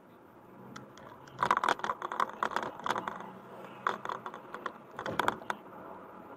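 A burst of rapid, irregular clicks and rattles lasting about four seconds inside a moving car, over faint steady road noise.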